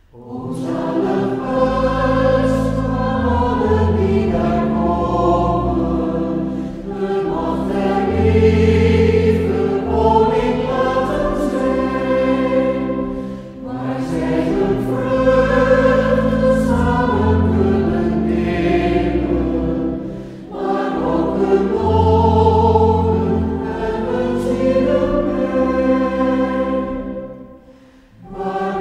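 A choir singing a Dutch song in long, held phrases, with brief breaks between phrases about halfway through and near the end.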